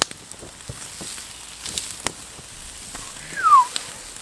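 Burgers frying over a hot campfire, a steady sizzle broken by scattered sharp crackles and pops. About three and a half seconds in comes a short high squeak that falls in pitch.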